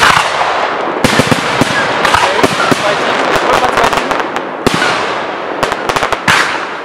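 Category 4 display fireworks bursting overhead: sharp bangs right at the start and about a second in, then dense crackling with a steady hiss, and another cluster of sharp bangs near the end.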